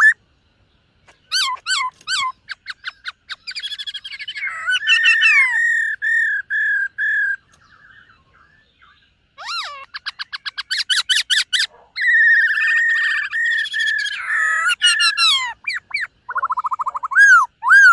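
Black-throated laughingthrush singing: varied, loud whistled phrases mixing rapid trills with long slurred notes, with a pause of about two seconds midway.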